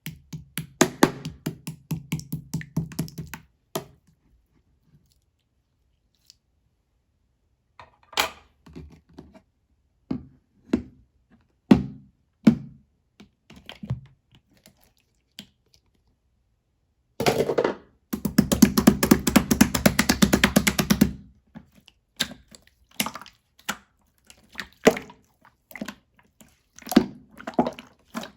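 Marbled slime being played with by hand, making bursts of rapid sticky clicks and pops. There are a few seconds of silence early on, scattered single pops, and a dense run of fast clicking about two-thirds of the way through.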